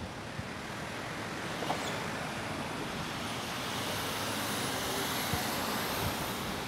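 Road traffic noise: a steady wash of passing vehicles that swells gradually through the second half.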